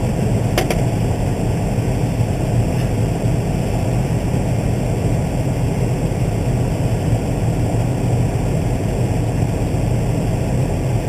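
Case IH Magnum 305 tractor's diesel engine running steadily under load as a low, even drone. A single short click sounds about half a second in.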